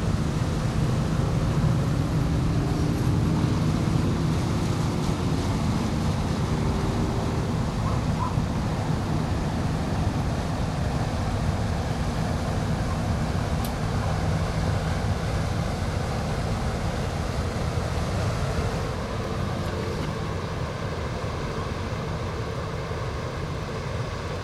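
Rhine car ferry's engine running as the vessel passes close by, a steady low drone that eases off a little near the end as it moves away.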